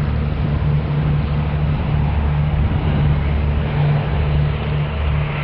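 Airbus A319's twin turbofan engines at takeoff thrust during the takeoff roll: a loud, steady jet noise with a deep low hum underneath.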